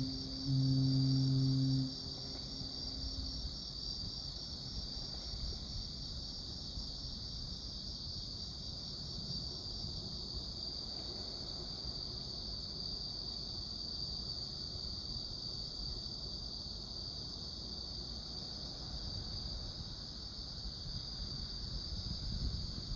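A ship's horn gives a low, steady blast, breaks off for a moment, then sounds again until about two seconds in. Under it and afterwards, insects chirr steadily at a high pitch.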